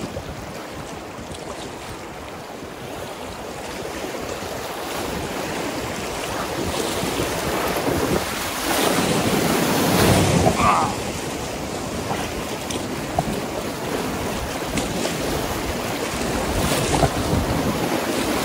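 Whitewater rapids on a river rushing, getting louder over the first ten seconds, with wind buffeting the microphone.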